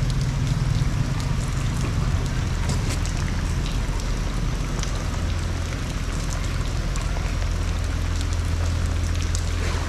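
Heavy rain falling steadily, with individual drops ticking close by and a low steady hum underneath.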